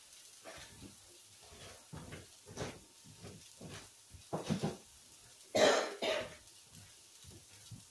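A woman coughing and clearing her throat several times in short bursts, the loudest cough about five and a half seconds in.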